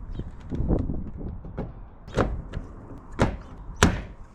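Sharp knocks and clicks of tools and metal being handled on a corrugated iron roof, three clear strikes in the second half with the loudest near the end, after a low rumble in the first second.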